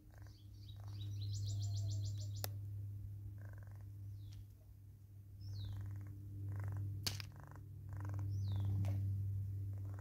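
Wild birds calling over a steady low hum: a short rapid high trill about a second and a half in, then several thin downward-sliding whistles, with a couple of sharp clicks. The hum swells and fades twice.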